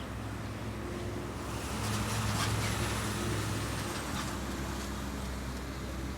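A steady low motor hum, with a vehicle passing that swells about a second and a half in and fades a few seconds later.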